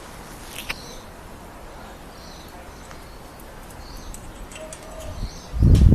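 Sun conure giving a few soft, short chirps, with a loud low thump near the end.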